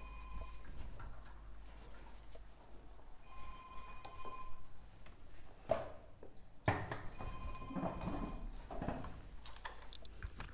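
A faint electronic ringing tone sounds for about a second at a time and repeats roughly every three and a half seconds. A couple of sharp knocks fall between the rings.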